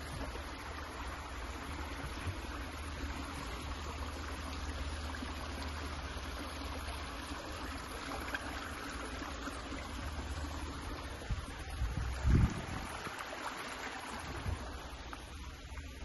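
Steady rush of water flowing in a small stream among the plants, thinning out near the end. A brief low thump about twelve seconds in.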